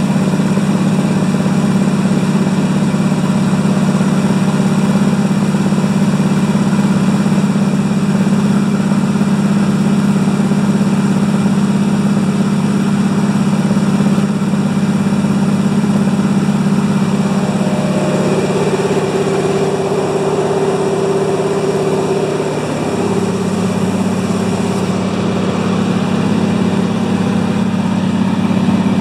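De Havilland Beaver floatplane's engine and propeller running with a steady drone. Its note changes twice, about two-thirds of the way through, as the power setting shifts.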